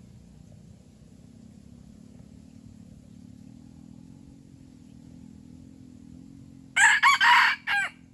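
Rooster crowing once near the end, a short crow of about a second, over a faint steady low hum.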